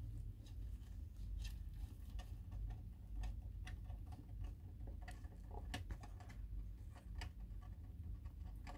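Netherland Dwarf rabbit kits moving about, their small claws making sparse, irregular light clicks and scratches over a low steady hum.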